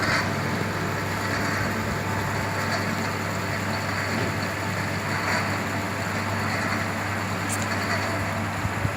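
A machine running steadily, with a constant low hum and an even mechanical noise over it.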